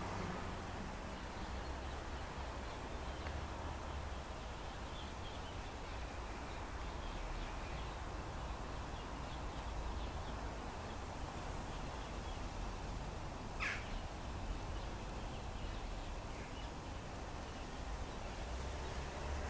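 Outdoor background: a steady low rumble and hiss with faint bird chirps, and one short, falling bird call about two-thirds of the way through.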